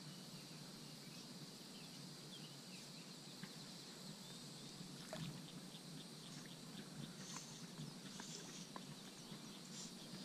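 Faint outdoor ambience by a pond: a steady high insect drone, with scattered small clicks and a few short high chirps in the second half.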